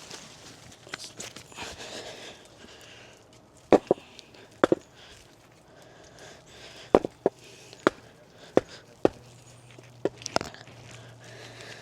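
About a dozen sharp, irregular knocks, some in quick pairs, starting a few seconds in: a rock hammering the back of an axe head wedged in a log to drive it in and split the wood.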